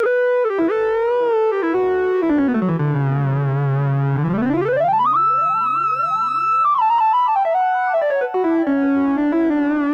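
Viscount Legend One synthesizer playing a lead sound with long pitch glides. It slides down to a low held note, sweeps up to a high held note about halfway through, then steps back down, with a wavering vibrato on the notes at the start.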